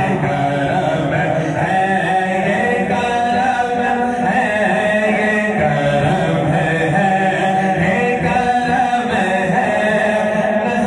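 Men's voices chanting a devotional naat together without instruments, in long sustained notes.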